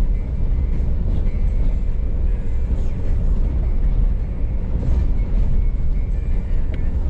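Steady low rumble of a vehicle driving, engine and road noise with no clear changes.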